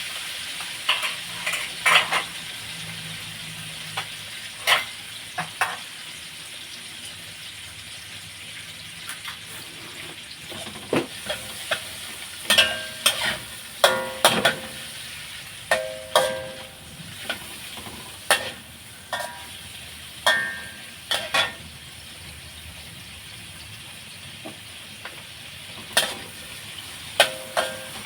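Squid stir-frying in a hot pan: a steady sizzle, with a spatula knocking and scraping against the pan many times, some strikes ringing briefly.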